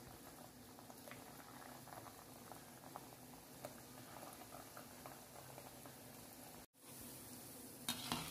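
Gulab jamun balls of khoya and maida dough deep-frying in hot oil: a faint, steady bubbling crackle of the oil. The sound drops out for a moment about two-thirds of the way through, and a few sharper clicks come near the end.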